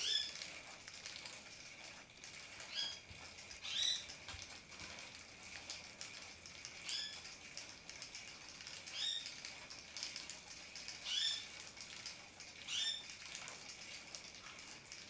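Motorized Flutterfly butterfly cat toy running with a steady whir as the butterfly spins around its base, with a short, high rising chirp every one to three seconds.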